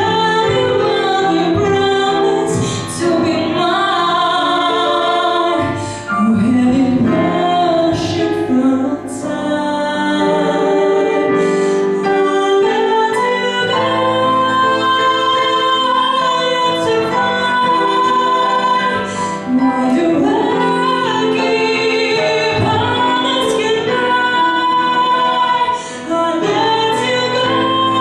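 A woman singing into a microphone with digital piano accompaniment, holding some notes for several seconds.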